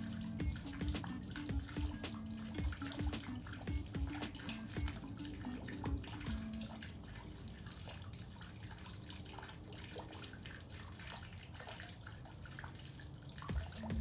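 Soft background music with held low notes, which fade for several seconds in the middle and return near the end, over a scatter of light clicks.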